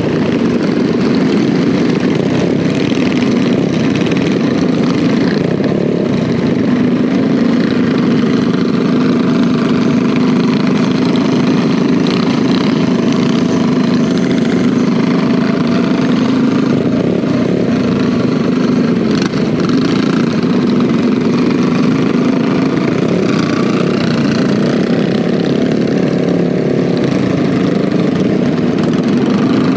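Small single-cylinder minibike engine, a Predator 212cc four-stroke, running steadily at cruising speed, with the engines of other minibikes riding in the group around it.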